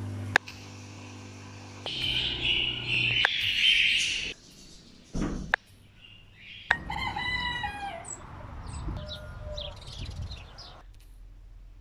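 A rooster crows once about seven seconds in, a single call of about a second and a half that falls in pitch, with short high chirps after it. Earlier there is a loud rushing hiss lasting about two seconds.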